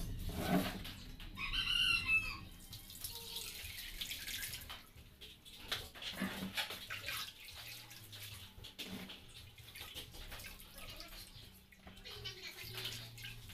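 Hands squeezing wet grated coconut, with coconut milk splashing and dripping through a plastic colander into a bowl: the first pressing of coconut milk. A rooster crows once in the background, about a second and a half in.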